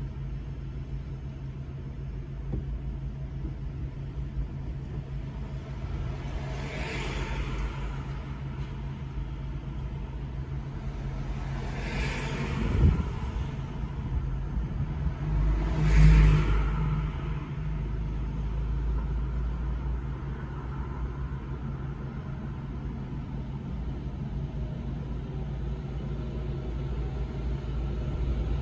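A car engine idling with a steady low hum while stationary in traffic. Three other vehicles swell up and fade away as they pass, the last and loudest with a deeper rumble.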